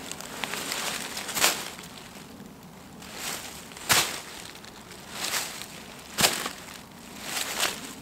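Dry fallen leaves crunched by hand in single step-like rustles, about five, spaced a second or more apart with pauses, imitating the footsteps of a roe deer moving through leaf litter.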